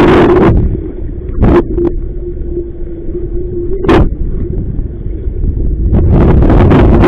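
Strong wind buffeting the microphone in heavy rumbling gusts, easing for a few seconds in the middle apart from two short blasts and picking up hard again near the end. A steady low hum runs beneath throughout.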